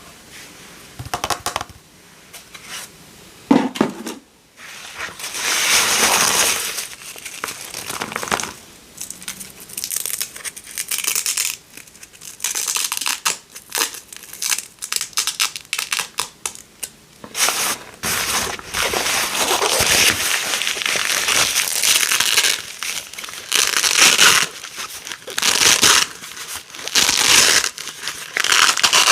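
Small pieces of hook-and-loop fastener being pulled apart again and again: a run of crackling rips, some short and some drawn out over a second or two.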